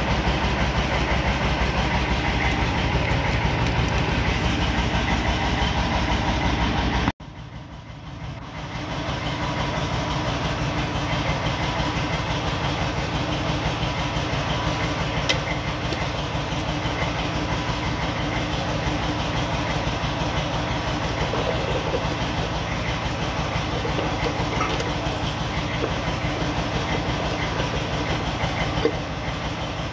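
A steady mechanical running noise with a fast, even rattle, like an engine or machine running. It cuts off sharply about seven seconds in and fades back up to the same steady noise.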